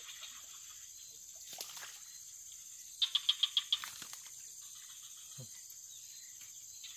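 Steady high-pitched insect chorus, with a brief rapid run of about eight high chirps about three seconds in.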